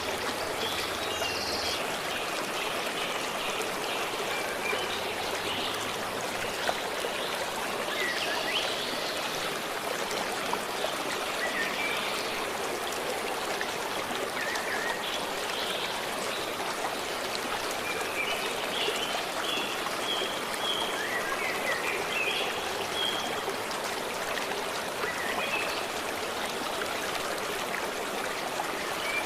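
A forest stream running steadily, with small birds chirping over it now and then, in a quick run of short notes about two-thirds of the way in.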